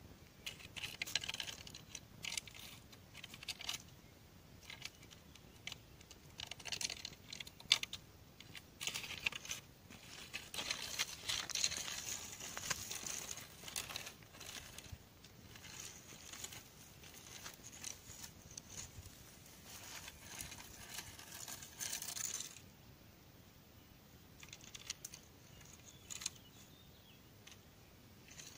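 Footsteps crunching on a gravel dirt road, an irregular run of scuffs and crunches that stops late on, leaving only faint rustling.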